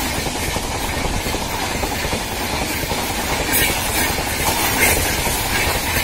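LHB passenger coaches of a Rajdhani Express passing close by at about 130 km/h: a steady rush of wheel-on-rail rumble and air noise. Sharper wheel clicks run through the second half.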